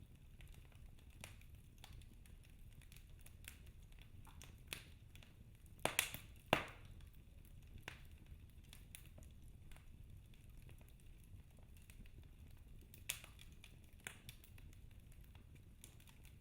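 Wood fire crackling in a fireplace: scattered irregular pops and snaps over a faint low rumble, with a cluster of louder pops about six seconds in and another near the end.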